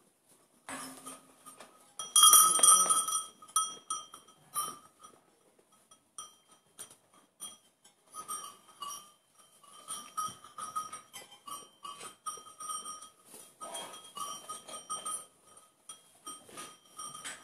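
A small bell on a goat's collar clinking irregularly as the goats move about, ringing loudest and fastest about two to three seconds in.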